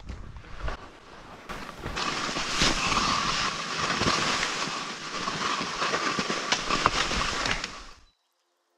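Skis sliding and scraping over snow on a downhill run, close to a body-mounted camera's microphone, full of small knocks and chatter. It gets louder about two seconds in and cuts off suddenly near the end.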